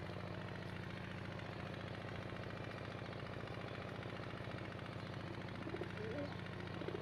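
An engine running steadily at idle, with a rapid, even chugging.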